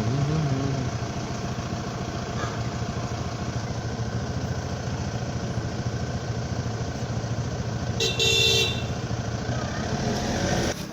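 A motor vehicle engine running steadily, with one short horn honk about eight seconds in.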